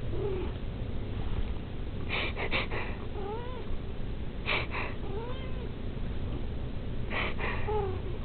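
Domestic cat mewing in short rising-and-falling mews, four in all, answering a person's brief breathy fake sneezes, three in all, each followed within a second by a mew.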